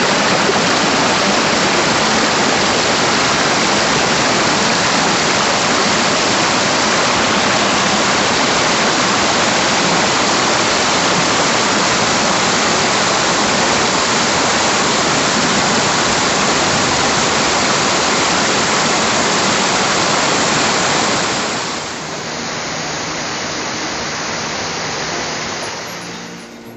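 Waterfall water pouring and splashing in a steady, dense rush. It drops in level about 21 seconds in and fades out near the end.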